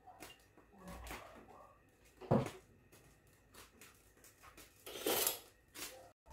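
Kitchen handling noises: a few light knocks and clatters of objects being set down and picked up, the loudest a sharp knock a little over two seconds in, and a short rustling scrape about five seconds in.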